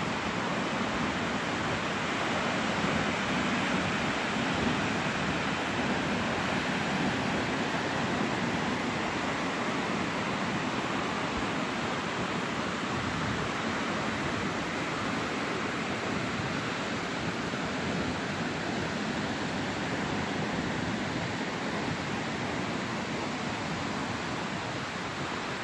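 Ocean surf breaking on a sandy beach, heightened by an approaching typhoon: a steady, unbroken rushing noise with no single wave standing out.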